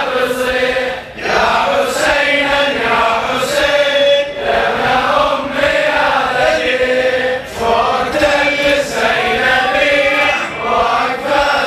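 Male voices chanting a Muharram latmiya lament refrain together, unaccompanied, in slow drawn-out sung lines.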